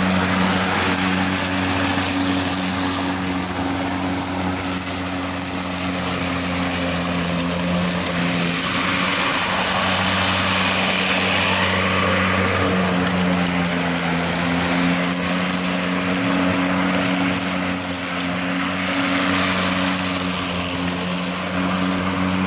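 Greenworks 40V 19-inch cordless electric lawn mower running while cutting grass: a steady motor hum with a rushing hiss from the spinning blade.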